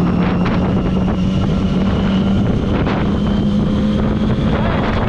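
Triumph Street Triple's three-cylinder engine pulling steadily in gear on a motorcycle, its pitch climbing slowly as it gathers speed, with wind noise on the microphone.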